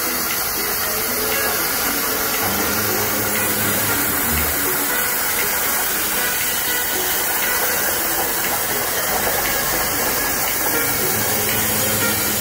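CNC plasma torch cutting steel plate, a steady loud hiss of the plasma arc and its compressed-air jet.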